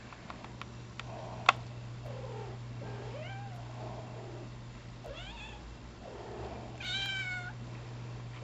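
Young Bombay-type cat meowing several times while carrying a plush toy in her mouth: drawn-out calls that rise and fall, with a higher, steadier call near the end the loudest of them. A sharp click about a second and a half in.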